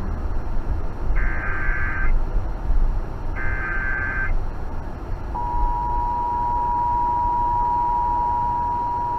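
Emergency Alert System test heard over AM radio. Two short bursts of screechy digital SAME header data, about a second each, are followed about five seconds in by the steady two-tone EAS attention signal, which holds on.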